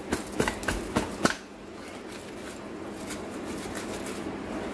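A few sharp clicks and taps as a plastic housing is handled, in the first second or so, then a faint steady rubbing as a cloth wipes dust off the housing.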